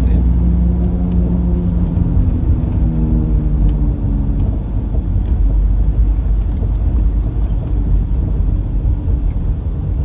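Vehicle engine and road noise heard from inside the cabin while driving: a steady low rumble, with a droning engine note that eases off about four seconds in.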